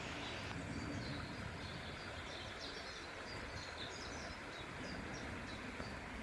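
Small birds singing, a run of short high chirps and trills over a steady outdoor hiss.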